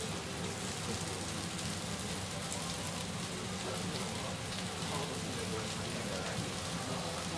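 Takoyaki batter sizzling steadily in a hot takoyaki griddle while the balls are turned with picks, with a steady low hum underneath.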